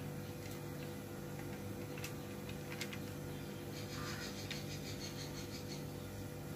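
Faint rustling of a cotton towel being peeled away as grated potato shreds drop onto a plate, with a few light ticks and a short stretch of rustle about four seconds in, over a steady low background hum.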